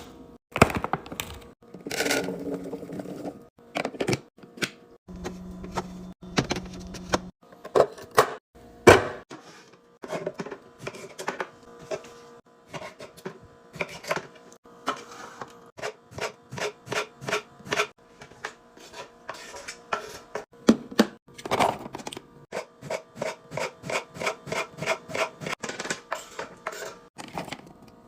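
Clicks, clacks and light knocks of containers, jars and packets being set down and arranged on fridge shelves and in organiser bins, turning into a fast run of even taps, about two or three a second, in the second half.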